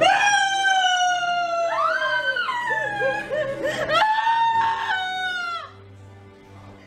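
A young woman screaming in two long, high-pitched wails. The first lasts about two and a half seconds and slowly falls in pitch. The second starts about four seconds in and ends shortly before six seconds.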